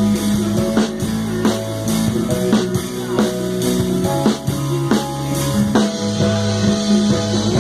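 A full band playing an instrumental passage: drum kit keeping a steady beat with electric guitar, bass and keyboard.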